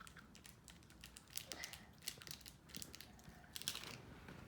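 Slime being mixed by hand as red paint is worked into it, giving faint, irregular sticky clicks and crackles.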